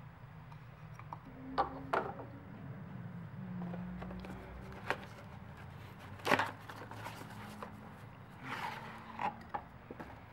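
Scattered light clicks and knocks of gloved hands handling an oil filter element and its cardboard box, the sharpest knock about six seconds in, with a brief rustle a little after eight seconds, over a faint low hum.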